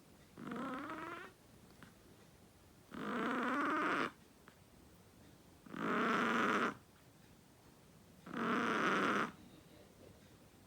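A chihuahua snoring in its sleep: four snores, each lasting about a second, coming roughly every two and a half seconds.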